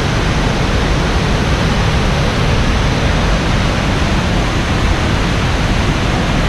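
Waterfall rushing in a loud, steady, unbroken wash of noise.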